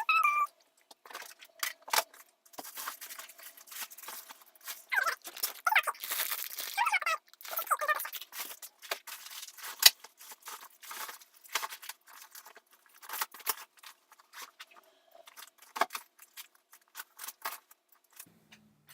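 Busy clatter of small objects being handled and moved about: rapid clicks, rattles and rustling, with some short squeaky sounds midway.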